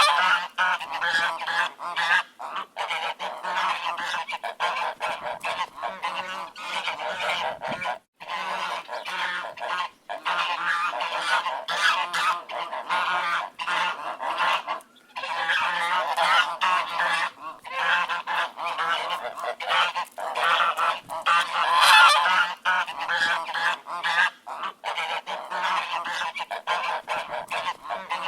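A flock of ducks quacking, many calls overlapping almost without pause, with a few brief lulls.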